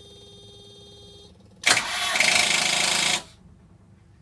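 Westerbeke marine diesel generator's starter failing to turn the engine over. A steady electric whine stops about a second in, then a loud burst of rapid ticking from the starter lasts about a second and a half and cuts off. The ticking is typical of a starter on a battery too weak to crank, and the start battery later tests at only 63 cold cranking amps.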